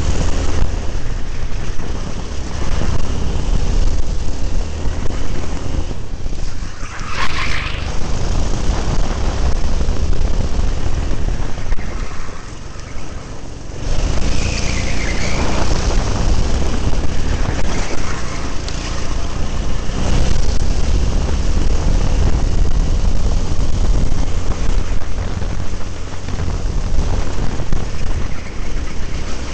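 A racing kart's engine running hard, picked up by a camera mounted on the kart, with heavy wind and vibration rumble on the microphone. The noise falls away briefly twice, as when the driver lifts off for corners.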